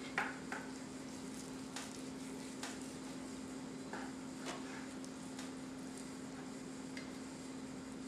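A knife slicing boiled corned beef brisket on a plastic cutting board, with scattered light taps and clicks as the blade and a holding fork meet the board, over a steady low hum.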